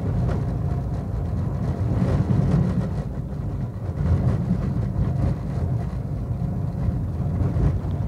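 Car driving on an unpaved dirt road, heard from inside the cabin: a steady low rumble of engine and tyres on the rough surface.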